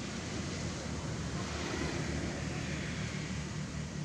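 Steady rushing outdoor background noise with no distinct calls or knocks.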